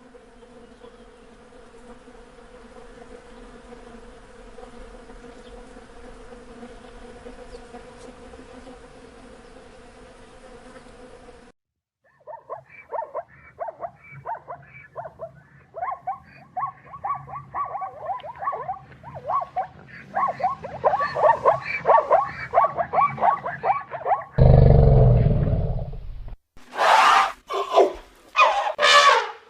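A sequence of animal sounds. First bees buzz in a steady hum. Then, from about halfway, a chicken clucks in quick repeated calls that grow louder. Near the end a lion gives one loud roar followed by a few short grunting roars.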